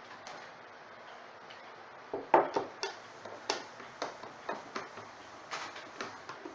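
Irregular sharp clicks and light knocks of hard objects being handled, starting about two seconds in after a faint hiss, several a second, the first ones the loudest.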